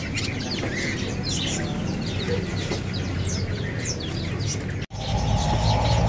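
Many small caged songbirds chirping at once: a dense chatter of quick, short, high chirps that slide down in pitch. There is a brief dropout about five seconds in, after which a lower steady hum comes in under the chirping.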